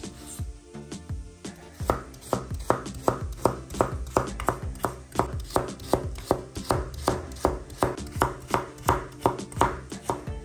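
Kitchen knife chopping food in quick, even strokes, about three a second, starting about two seconds in, with background music under it.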